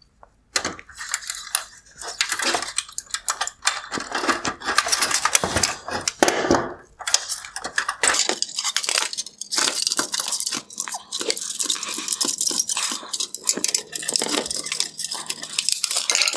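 Plastic headlight bezel and its wire connector being worked loose from the headlight housing by gloved hands: a continual crackle of clicking, rattling and scraping plastic.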